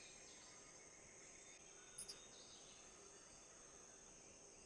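Near silence: faint room tone with a steady high-pitched hiss, and two faint ticks about two seconds in.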